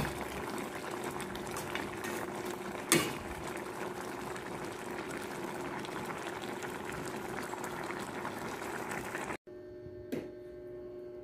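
Coconut-milk broth with milkfish simmering and bubbling steadily in a pan, with two sharp knocks of a metal ladle against the pan. Near the end it turns quieter and the ladle clinks once in a ceramic serving bowl.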